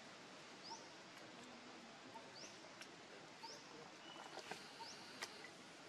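Faint, short, high-pitched rising chirps from a small animal, about five of them roughly a second apart, over a low hiss with a few light clicks.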